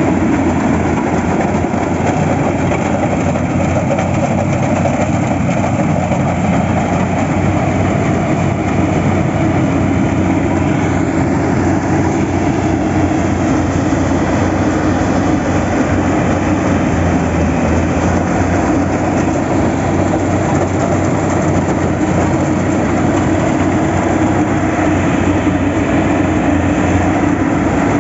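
Steady noise of a running vehicle, with no breaks or changes.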